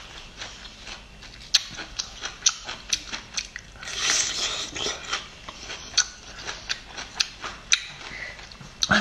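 Eating a hand-peeled cooked bamboo shoot, close to the microphone: crisp clicks of peeling and chewing throughout, with a longer crunchy bite about four seconds in.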